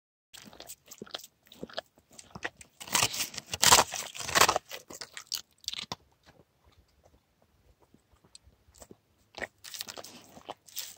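Dog licking and crunching at the ice on a frozen stock tank: a run of irregular crunches and clicks, loudest about three to four and a half seconds in. A quiet spell of about three seconds follows, then the licking and crunching start again near the end.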